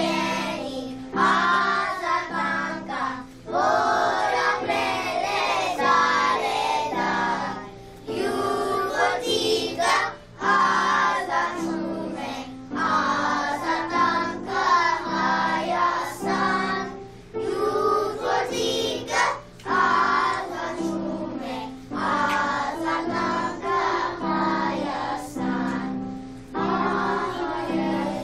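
A group of children singing a song together over instrumental accompaniment with sustained low notes, phrase after phrase with short breaths between.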